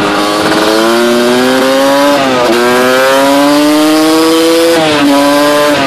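Off-road quad engine pulling hard under acceleration, its pitch climbing and dropping sharply at two gear shifts, about two seconds in and about five seconds in, then holding steady. Wind rushes over the microphone.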